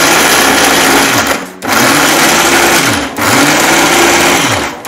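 Electric mixer grinder with a small steel jar running loudly in pulses about a second and a half long, grinding roasted wheat-dough pieces into coarse churma crumbs. The motor cuts out briefly three times and picks up again each time.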